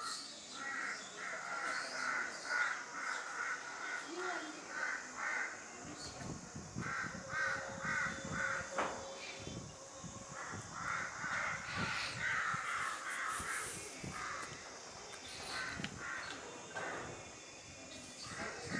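Crows cawing in runs of short, quick calls, about three a second, with pauses between the runs.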